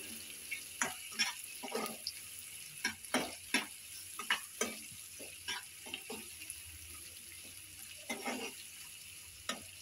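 Onions sizzling in oil in a kadhai while a khadika, a metal spatula, stirs them, scraping and knocking against the pan in irregular strokes over a steady frying hiss. The strokes come thick in the first half and thin out after that.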